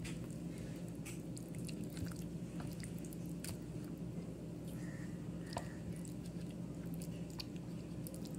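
Hand squishing and kneading raw chicken in a wet spice marinade in a stainless steel bowl: soft irregular wet squelches and small clicks, over a steady low hum.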